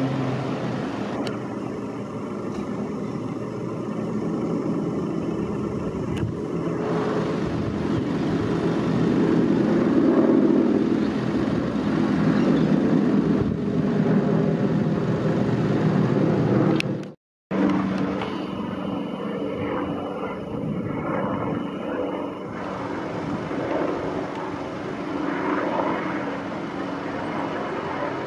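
Piston-engined propeller aircraft droning overhead in a formation flypast, growing louder toward the middle, with a brief dropout about two-thirds of the way through.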